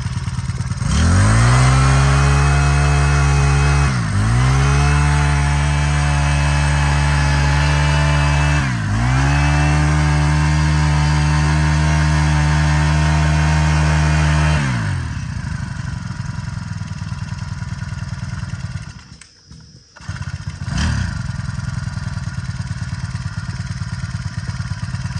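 Honda GX22 22cc four-stroke brush cutter engine idling, then opened up to high speed about a second in and held there, with two short dips in speed, before being throttled back to idle. It falls nearly silent for a moment, then picks up and idles again; it runs very smoothly.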